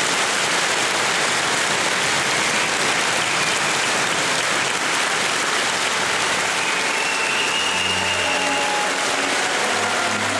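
A large crowd of mourners applauding steadily: a dense, unbroken mass of clapping.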